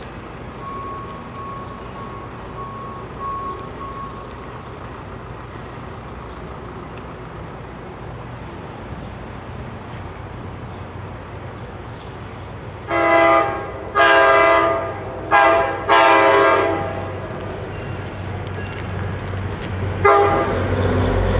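An approaching NJ Transit Geep diesel locomotive sounds its horn in the grade-crossing pattern: two long blasts, a short one and a long one, about halfway through. Near the end it blows again as its diesel rumble grows louder with the train's arrival.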